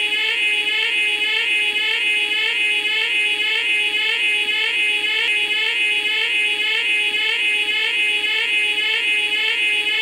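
Ecto-1 siren warbling: a high pitched wail that repeats short rising sweeps about three times a second, steady and unbroken.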